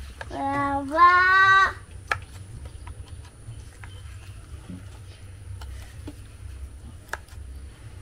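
A young child's high-pitched voice calls out in two quick parts about half a second in, the second part higher and longer. After that come faint scattered clicks of a metal spoon scraping soft meat out of a green coconut shell.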